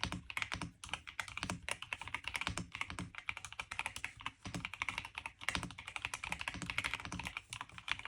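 Fast continuous typing on a Royal Kludge RK R75 mechanical keyboard with linear silver switches: a dense run of keystroke clacks with brief pauses between bursts.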